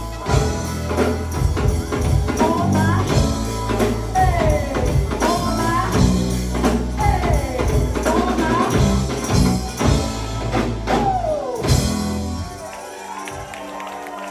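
Live go-go band music with a heavy bass line, drums and hand percussion, and singing over it. The bass and drums drop out about a second and a half before the end, leaving a quieter, thinner passage.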